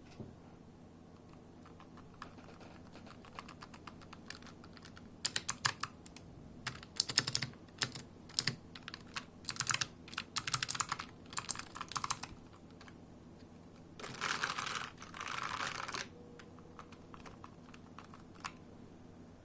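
Keys of an A4Tech Bloody B800 keyboard being typed on: light scattered clicks at first, then louder quick runs of keystrokes. About fourteen seconds in come two dense bursts of rapid key presses, each lasting about a second, before the clicking turns light and sparse again.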